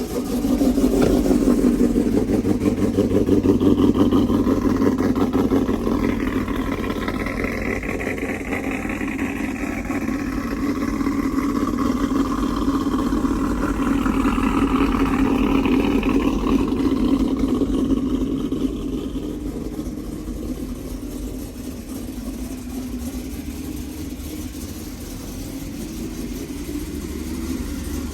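Cammed GMC Sierra V8 fast-idling just after a cold start, through long-tube headers, an X-pipe, resonators and Corsa Xtreme mufflers. The idle is louder at first and settles lower after about twenty seconds as the engine warms.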